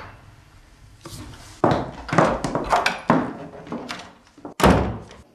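Several knocks and scuffs, then a wooden door shutting with a heavy thump near the end.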